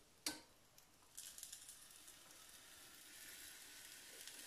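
Faint, steady sizzling of wafer batter cooking on the hot plates of an electric waffle iron, starting about a second in after a short click.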